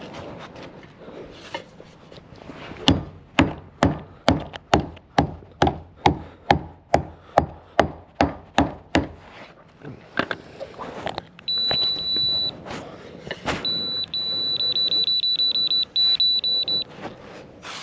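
Nailing during timber wall framing: a steady run of about eighteen sharp strikes, about three a second, over several seconds. Later a high electronic beep sounds once, then again as a run of rapid pulsing beeps.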